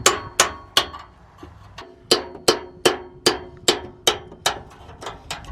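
Hammer blows on a chisel driven into the rusted exhaust pipe under the bus, two to three strikes a second with a metallic ring after each hit and a short pause about a second in, working the old pipe loose from the muffler pipe.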